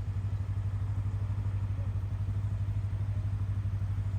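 Motorcycle engine idling steadily, a low, evenly pulsing note that holds one pitch without revving.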